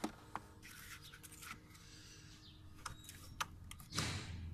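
Scattered sharp clicks and light rustling of a hand handling plastic trim parts and hoses in a car's engine bay, with a louder rustle near the end as a rubber hose is gripped.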